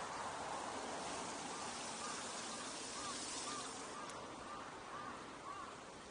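Outdoor street ambience: a steady hiss of background noise, with a run of about nine short chirps repeating about twice a second through the middle.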